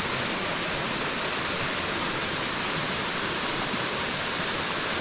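Waterfall running high after rain: a steady, loud rush of falling water.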